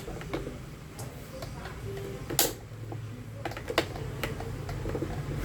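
Scattered light clicks and knocks of fan parts being handled and unclipped as an Arno Vitality fan is taken apart, with the loudest knock about two and a half seconds in.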